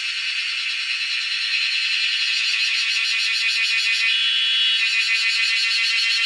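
Cicadas calling: a loud, high, continuous buzzing drone that swells over the first couple of seconds and takes on a fast pulsing beat about halfway through.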